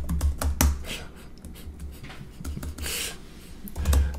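Typing on a computer keyboard: irregular keystrokes with dull low knocks under them, and a short breath about three seconds in.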